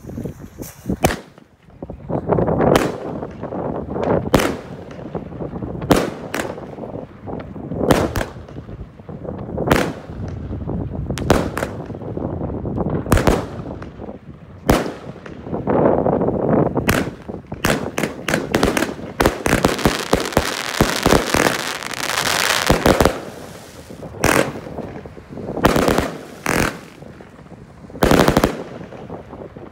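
A 500-gram, 40-shot consumer firework cake firing shot after shot, with sharp bangs every second or two. About two-thirds of the way through, the shots come rapidly in a dense volley, and the last bang comes near the end.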